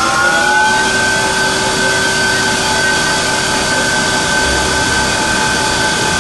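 ACER E-Lathe 1440V speed lathe's spindle drive spinning up under its variable-frequency drive. A rising whine levels off about a second in, then holds steady at top speed, about 2,300 rpm.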